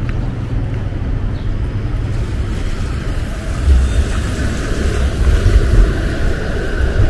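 Downtown street traffic: a vehicle passing, getting louder from about halfway through, over a steady low rumble.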